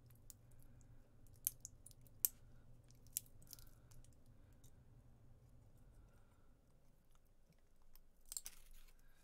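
Faint sharp clicks and short crunches of wire cutters working at the connecting strips of a pack of 18650 lithium cells: a few separate clicks in the first few seconds, and a denser crunching scrape near the end.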